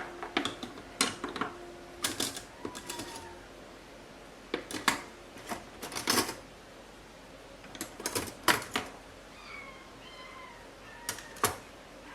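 Hard kitchenware clacking and clinking as it is handled and set down, in irregular clusters of sharp knocks.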